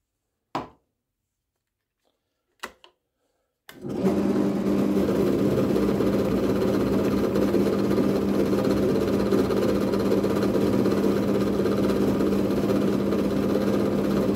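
A few light knocks, then about four seconds in a drill press switches on and runs steadily with a constant hum. It spins a polishing wheel in its chuck while a block of green polishing compound is pressed against the wheel to charge it for honing carving gouges.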